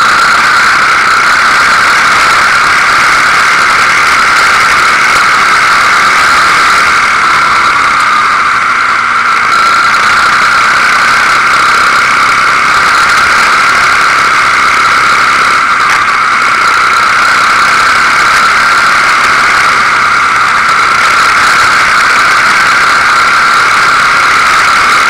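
Quad bike running steadily at speed along a dirt track, heard loud and harsh on the machine's own onboard camera, with a steady high-pitched whine.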